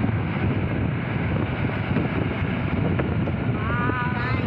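Wind buffeting the microphone at an open window of a moving vehicle, over the steady road and engine noise of the vehicle. A short, high, wavering pitched sound comes in near the end.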